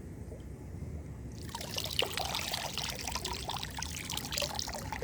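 Water pouring and splashing, starting suddenly about one and a half seconds in and running on steadily, over a low rumble.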